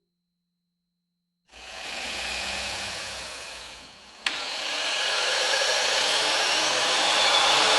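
Silence, then a steady rushing, blowing noise starts about a second and a half in, fades a little, and after a sharp click near the middle comes back louder and holds steady.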